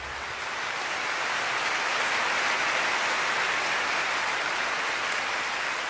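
Concert audience applauding: an even wash of clapping that swells over the first two seconds, holds, and eases off near the end.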